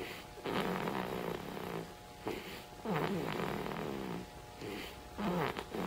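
A three-week-old baby snoring in his sleep: raspy, pitched breaths in and out, a new breath every two to three seconds.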